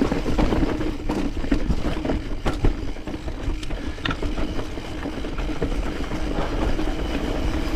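Mountain bike rolling down a steep, rocky trail: the tyres running over rock and the bike rattling, with many small sharp knocks over a steady low rumble.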